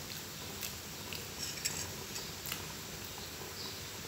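A handful of light, sharp clinks and taps of kitchen utensils and dishes being handled, spread irregularly over a steady faint hiss.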